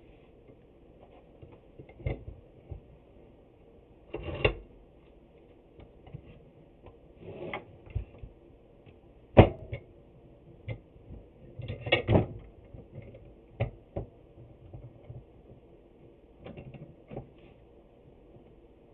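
Irregular knocks, clicks and clatter of metal clamps and wooden boards being handled and adjusted during a glue-up. The loudest is a sharp knock about nine seconds in.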